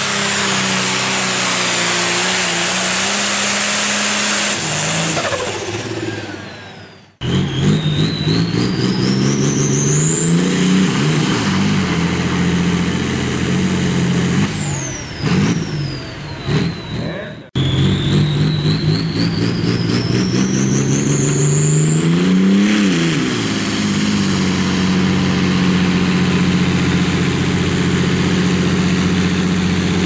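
Modified pulling tractors' diesel engines at full throttle under load, with a high whine that climbs steeply each time an engine revs up on launch and then holds high through the pull. The first engine winds down about six seconds in. After an abrupt cut, a John Deere 4255 pulling tractor revs up twice, with dips in between and another cut, before settling into a steady high-revving pull near the end.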